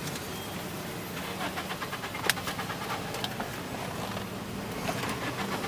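A car engine running slowly, heard from inside the cabin while the car creeps through a parking area. A brief run of quick ticks comes about a second in, and a single sharp click a little later.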